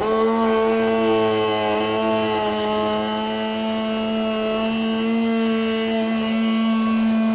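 Power tool cutting through a plastic car bumper cover, running at a steady, even-pitched buzz.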